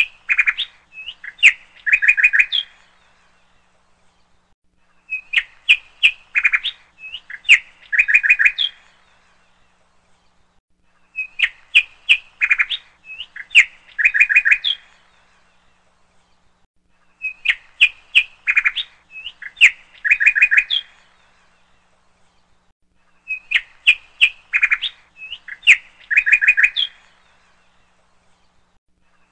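Bird chirps on a repeating loop: the same burst of quick high chirps and short trills, about three and a half seconds long, comes back every six seconds or so with silence between, five times over.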